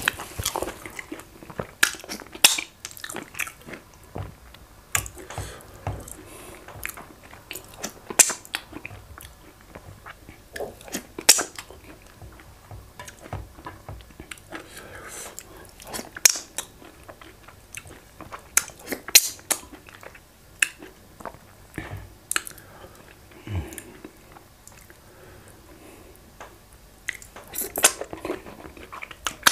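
Close-miked eating sounds: chewing with wet smacks and clicks of the lips and tongue, coming irregularly. The eater scoops efo riro vegetable soup off the plate with his fingers and licks them.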